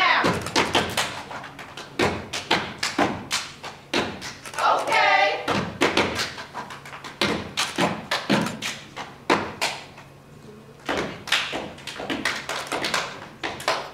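Step team stepping: feet stomping on the stage floor and hands clapping and slapping in fast, complex rhythms. Brief shouts come at the start and about five seconds in, and the strikes thin out briefly around ten seconds in.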